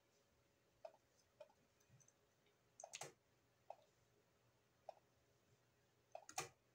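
Computer mouse clicking faintly: single clicks every second or so, with quicker clusters of clicks about three seconds in and near the end.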